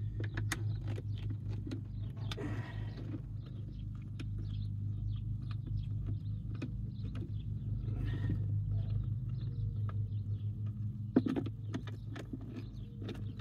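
A nut driver working the bolts of a cable line extender's mounting bracket: scattered light metallic clicks and taps, with one sharper knock about eleven seconds in. Under it runs a steady low engine drone.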